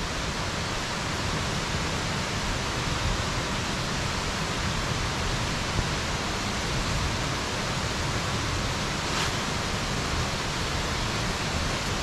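Steady, even rush of falling water: the Rincón waterfall, close ahead, heard through the forest.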